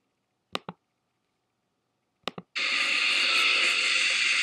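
Two mouse clicks, then about two and a half seconds in a steady hiss starts abruptly and holds: the noisy audio track of raw news footage as the video plays.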